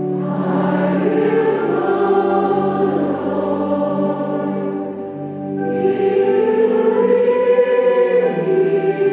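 Church choir and congregation singing a hymn over held accompanying chords, with a brief lull about five seconds in before the next phrase swells.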